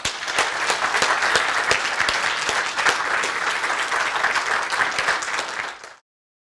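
Lecture-hall audience applauding, steady clapping that ends abruptly about six seconds in.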